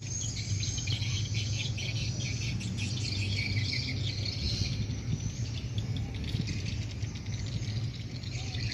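Outdoor ambience: insects chirping continuously, with some bird chirps, over a low steady rumble.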